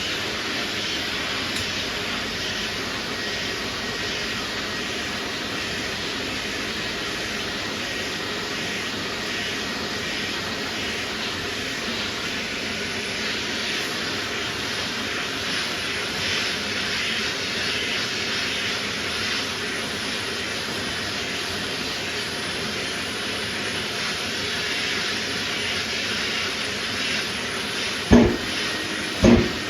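Sandpaper on a sanding block rasping steadily over guide-coated primer on a metal door panel, knocking out low spots. Two short knocks come near the end.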